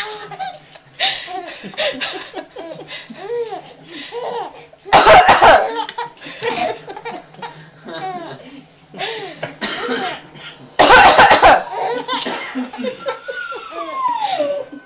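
A woman fake-coughs loudly twice, about five and eleven seconds in, and a baby answers with repeated short bursts of laughter around and after each cough.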